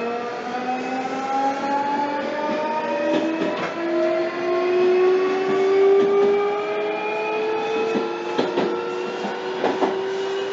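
Nankai electric train's VVVF inverter and traction motors whining as the train accelerates: several tones rise slowly together. A few sharp clacks come in the last couple of seconds.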